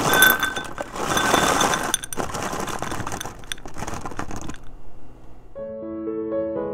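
Frozen blueberries poured into a glazed ceramic bowl: a dense clatter of small hard berries clicking against the bowl and each other, stopping about four and a half seconds in. Piano music comes in near the end.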